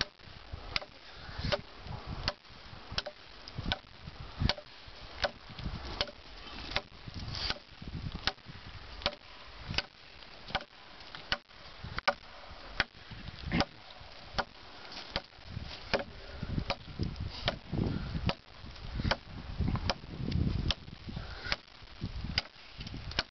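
Busse Battle Mistress, a large fixed-blade knife, chopping into a 4x4 wooden timber: a steady run of sharp wooden chops, about three strokes every two seconds.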